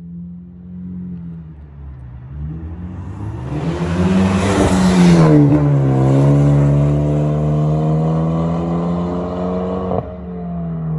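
2013 Hyundai Genesis Coupe 2.0T's turbocharged four-cylinder with a catless, muffler-delete exhaust, approaching under power and passing close by about four to five seconds in, its pitch dropping as it goes past. It then pulls away with a steady engine note, and a single sharp crack comes near the end.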